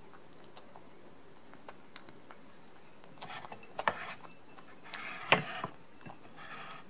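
A cat eating wet food from a ceramic bowl: soft chewing and licking with light clicks at first. In the second half come three clusters of clinking against the bowl, with one sharp knock about three quarters of the way through as the loudest sound.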